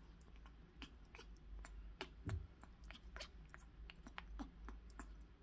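Faint, irregular small clicks and crunching sounds, with one soft thump about two seconds in.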